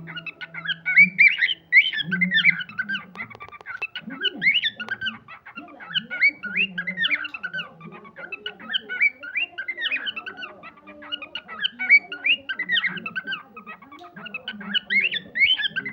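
Cockatiel chirping and whistling in a long run of short, quick notes.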